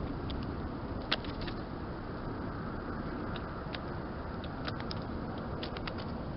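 Steady low rumble of distant road traffic, with scattered short sharp ticks from garden birds feeding at irregular moments, the loudest about a second in.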